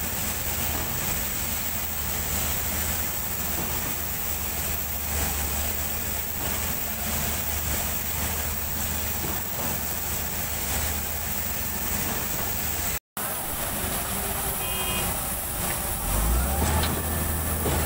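Diesel engines of a concrete mixer truck and a trailer-mounted concrete pump running steadily with a low hum while the mixer discharges into the pump hopper. The hum gets stronger near the end.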